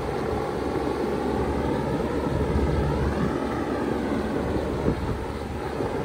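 Bard 2.5-ton wall-hung heat pump running steadily in heat mode, its compressor and outdoor fan giving a continuous hum and rush of air.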